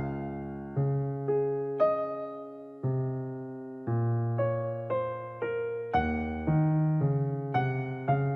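Background music: a gentle piano (electric piano) melody, notes struck about every half second and fading between strikes.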